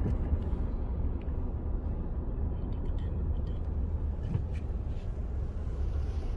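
Car driving, heard from inside the cabin: a steady low rumble of engine and tyres on the road, with a few faint ticks.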